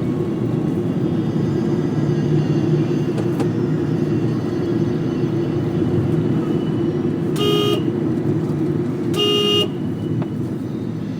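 Steady road and engine rumble inside a car cabin with the windows closed. A car horn toots twice, briefly, about a second and a half apart, in the second half.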